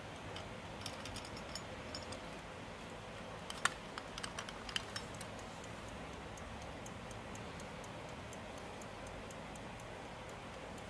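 Antique brass carriage alarm clock ticking, its platform escapement giving fast, light ticks, about five a second. A few louder clicks break in about four to five seconds in.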